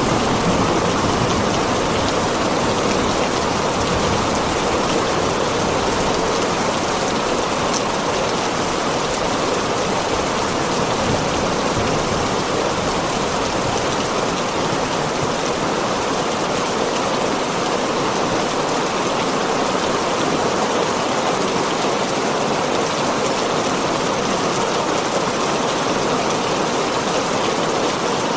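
Heavy rain falling steadily on a tin roof, an even unbroken patter.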